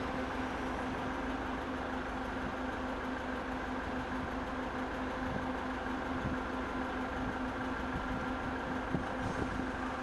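Steady engine hum, like a diesel engine running at idle, with a constant low drone that does not change.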